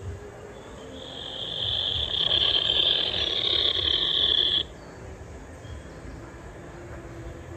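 A high, steady buzzing call like a cicada's. It swells in over about a second, holds loud for a couple of seconds, then cuts off abruptly about four and a half seconds in.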